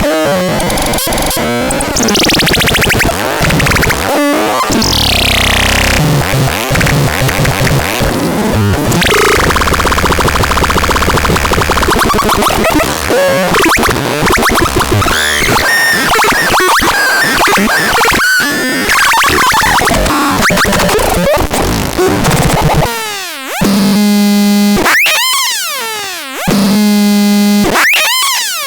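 Synthesizer playing harsh, noisy electronic textures with sweeping pitch glides and stuttering, rapidly retriggered sounds. Near the end these give way to separate buzzy pitched notes, each with a sweeping filter, broken by short gaps.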